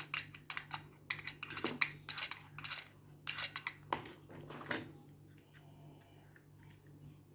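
Toy packaging being handled and opened, with rapid crinkles, clicks and taps through the first five seconds, then only faint scattered ticks.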